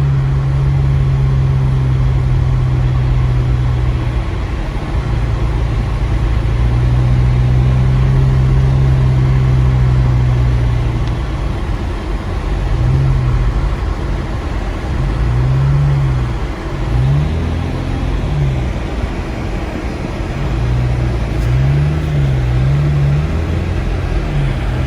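Car engine heard from inside the cabin while driving through deep snow, holding a steady note for the first half and then rising and falling in pitch again and again. Under it runs a steady hiss from the windscreen defroster fan, which is loud.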